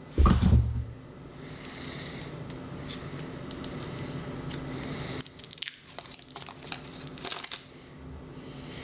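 A stick of butter's paper wrapper being crinkled and torn open by hand, in scattered crackles. There is a heavy thump just after the start, and a steady low hum that stops about five seconds in.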